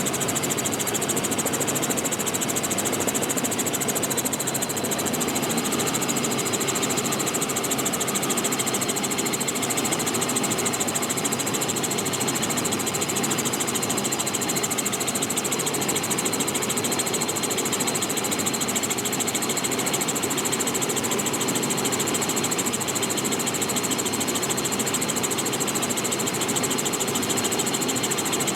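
Robinson R44 helicopter in flight with its doors off: steady, loud rotor and piston-engine noise mixed with wind rushing through the open doorway, with a fast even flutter and no change in pitch or level.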